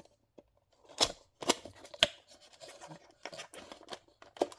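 Packaging of a boxed diecast model car being handled and opened: three sharp clicks or snaps about a second in, then rustling and scraping of the packing.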